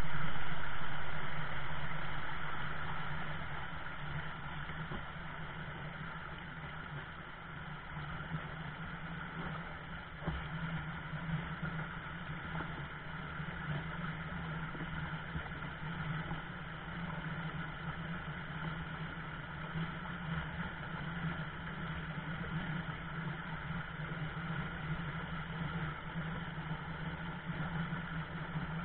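Rapids of a shallow rocky stream rushing steadily. The sound is loudest in the first couple of seconds and settles by about four seconds in.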